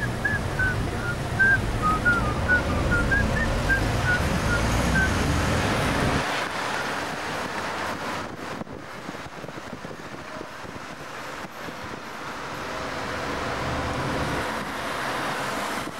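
City traffic heard from inside a car: a low engine rumble that drops away suddenly about six seconds in and slowly builds again near the end. Over the first five seconds a quick run of short, high, hopping notes sounds, like a whistled tune.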